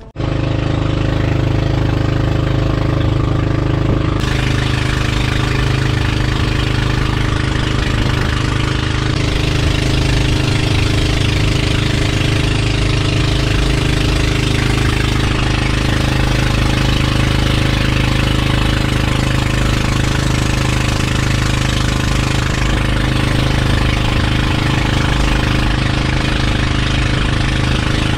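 Outrigger fishing boat's engine running steadily while the boat is under way, an even drone over the hiss of water along the hull.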